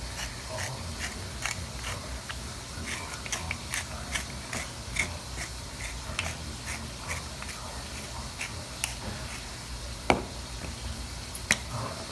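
Black pepper being ground from a pepper grinder onto scallops: a steady run of light, crisp clicks, a few a second. Two sharper knocks near the end.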